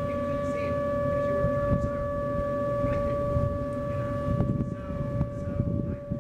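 ASC Alertronic AL8000 electronic civil defense siren sounding its steady alert tone during a test. It holds one unwavering pitch throughout.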